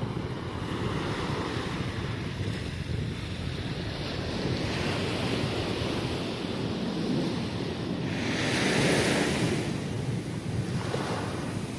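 Sea surf breaking and washing up a sandy beach, with wind buffeting the microphone. A bigger wave swells up and breaks about eight seconds in.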